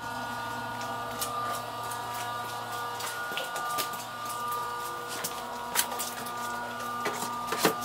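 A steady hum made of several held tones, with scattered light clicks and knocks throughout and two louder knocks near the end.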